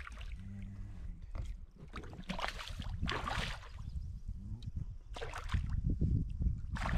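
Water splashing and sloshing in several short bursts as a hooked northern pike thrashes at the surface beside a canoe, over a low rumble that grows near the end.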